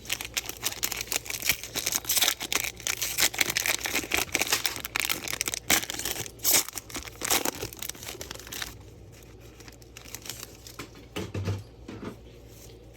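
Foil trading card pack wrapper being torn open and crinkled: dense crackling for about nine seconds, then a few softer rustles.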